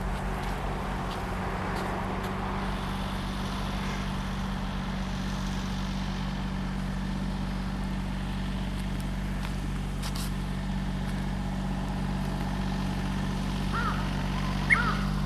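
Steady low engine drone running evenly throughout. A few short, repeated bird chirps come in near the end.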